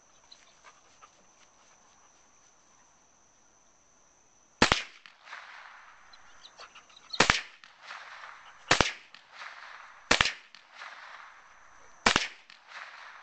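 Rifle firing five single shots, spaced about one and a half to two and a half seconds apart and starting about four and a half seconds in. Each shot is a sharp crack with a short echo. A steady high chirring of insects runs under the quieter stretch before the first shot.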